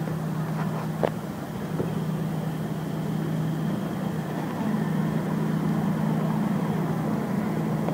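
Mobile crane's diesel engine running steadily with a low hum, while the crane swings its empty hook and spreader bars. A light click about a second in.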